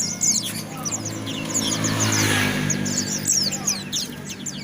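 A white-eye (pleci) singing a fast, continuous twitter of short, high chirps that mostly fall in pitch. A low motor hum swells and fades in the middle.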